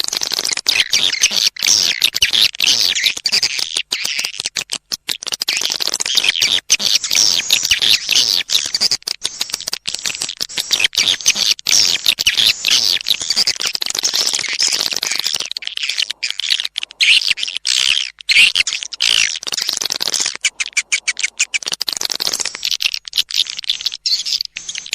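Recorded swiftlet lure call: a dense, unbroken stream of high-pitched swiftlet chirps and twitters. It is the calling sound played in swiftlet nest houses to draw the birds in.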